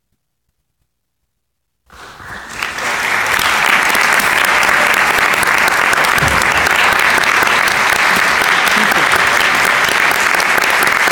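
Near silence for about two seconds, then audience applause that swells quickly and goes on steadily, loud and even.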